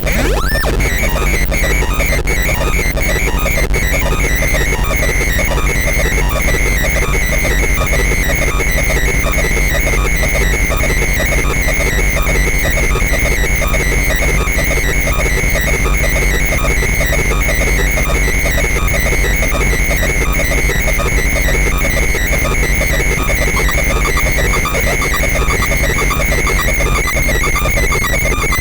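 Loud electronic noise music from DIY electronics: a dense, steady wall of fast crackling pulses with a sustained high whine and a constant low hum underneath.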